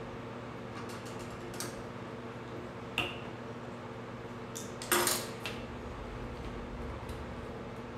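Small plastic bottle and cap being handled on a stone countertop: a few faint ticks, a sharp click about three seconds in, and a louder clatter about five seconds in, with a smaller knock just after. A steady low hum runs underneath.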